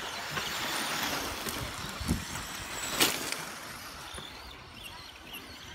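1/10-scale electric RC buggies with Tamiya Sport Tuned brushed motors racing on a dirt track: motor whine and tyre noise on the dirt, with a sharp knock about three seconds in and a softer thump just before it.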